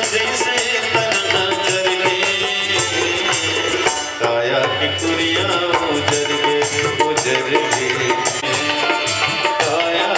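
Chhattisgarhi Ramayan party music: tabla drumming a fast, steady rhythm under pitched instrumental lines, dipping briefly just after four seconds.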